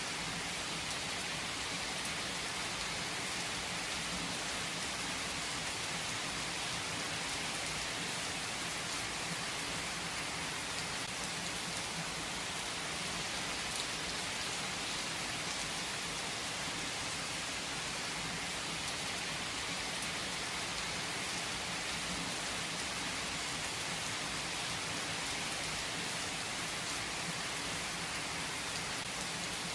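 Heavy rain falling steadily: an even, dense hiss with a few sharper drop ticks here and there.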